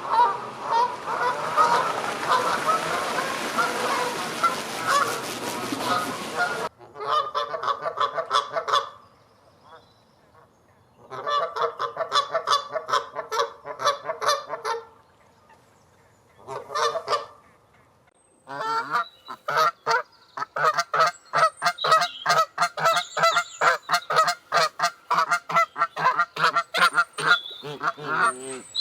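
Canada geese honking: a dense chorus of many overlapping honks over a steady hiss for the first six or seven seconds, then separate runs of rapid honks with short quiet gaps between them.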